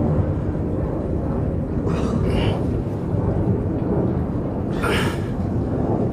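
Hard breathing from men straining through push-ups, with two sharp exhales about two and five seconds in, over a steady low rumble.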